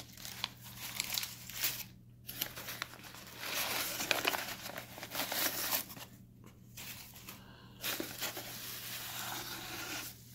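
Crumpled newspaper packing rustling and crinkling in stops and starts as it is pulled out of a shipping box, with brief pauses about two and six seconds in.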